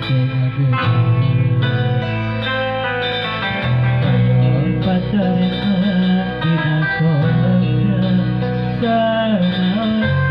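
Sundanese dangdut pop song: a man singing into a handheld microphone over a backing track led by guitar, played through a portable loudspeaker.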